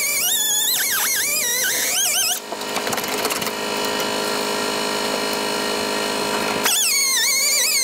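Air-powered cut-off tool whining as it cuts through rusty body steel, its pitch wavering with the load. It stops about two and a half seconds in, leaving a steady rushing noise, and starts cutting again near the end.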